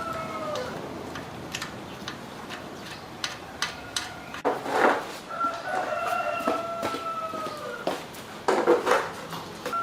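A rooster crowing: the end of one long crow at the start, a full crow about halfway through that sags in pitch at its end, and another beginning near the end. Light clicks and knocks sound throughout, with two louder rough bursts.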